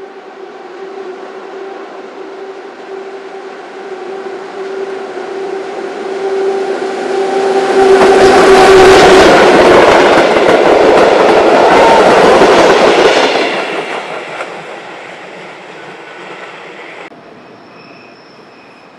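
A locomotive-hauled train of vintage passenger coaches approaches with a steady hum. It passes close by for about five seconds, loud, with a fast clatter of wheels over the rail joints, and then fades away. Near the end the sound cuts abruptly to a much quieter, distant train.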